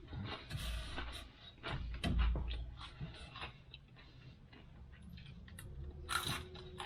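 A person eating Cheerios: crunching and chewing, with many small clicks and a couple of low thumps.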